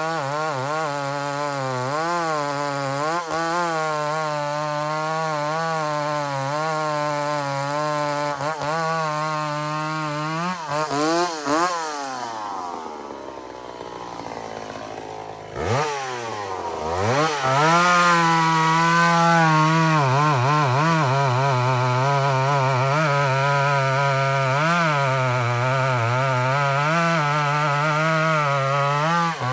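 McCulloch SP81 two-stroke chainsaw cutting through a large log under load, its engine note wavering as it pulls. About eleven seconds in it revs up and drops back to a lower, quieter idle for a few seconds. It then revs sharply back up and bogs into the wood again, cutting to the end.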